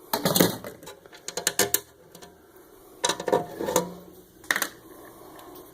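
Metal parts of a traffic light controller's casing clinking and rattling as they are handled and taken apart, in several short bursts of knocks and clatter.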